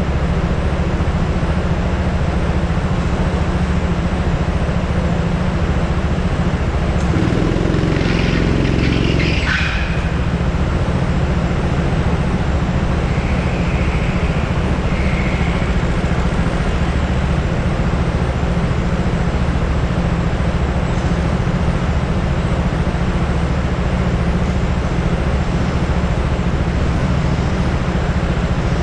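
Go-kart engine running with a steady low drone under broad rushing noise, heard close up from a camera on the kart. A brief louder rising sound comes through about eight seconds in.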